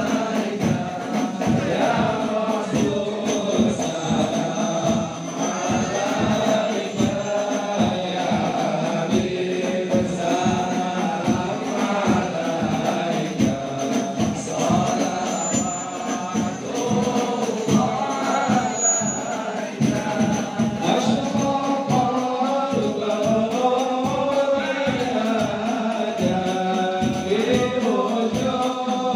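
A group of voices chanting an Islamic devotional song (sholawat) in unison, accompanied by rebana frame drums struck in a steady rhythm.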